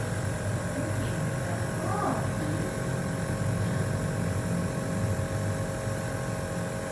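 Compressor nebulizer running with a steady hum.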